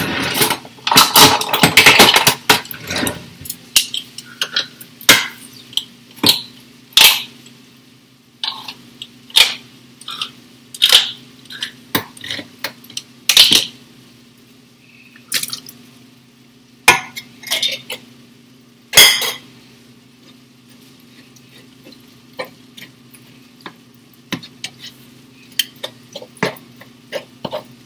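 Kitchen clatter: a quick run of metal clinks and knocks in the first few seconds, then scattered sharp clinks and taps of utensils and cookware, growing sparser and fainter near the end, over a steady low hum.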